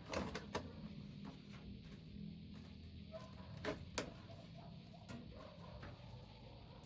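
Scattered light clicks and knocks of tools and parts being handled while a microwave oven is taken apart, over a low steady hum.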